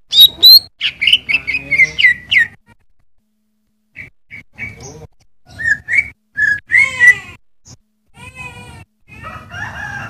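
Greater green leafbird (cucak ijo) singing loudly: quick, varied notes and gliding phrases, breaking off about two and a half seconds in and taking up again a second and a half later.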